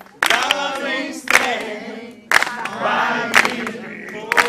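A crowd of guests cheering and chanting together, with sharp claps landing about once a second.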